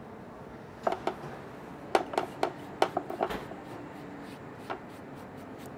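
Sharp knocks and clinks as a grinding stone is tapped against and scraped over a small terracotta bowl to empty out freshly ground spice: two knocks about a second in, a quick run of them around two to three seconds in, and one more near the end.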